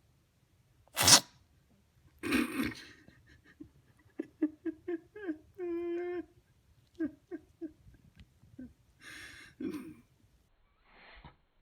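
A Persian cat sneezes once, sharp and loud, about a second in. A person's voice follows in short, quick repeated bursts and one held note.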